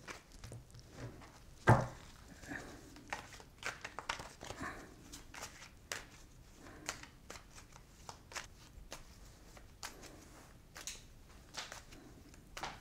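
Tarot deck being shuffled by hand: a run of soft, irregular card flicks and rustles, with one louder short sound about two seconds in.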